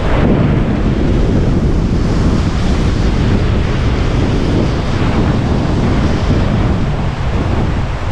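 Ocean surf breaking and washing over a rocky shoreline, with wind buffeting the microphone. The sound is loud and steady throughout.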